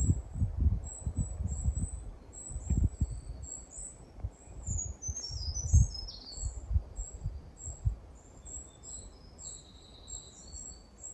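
Small songbirds chirping and singing in high-pitched notes, with a quick run of falling notes about halfway through. Low thumps and rumble on the microphone are loudest in the first few seconds.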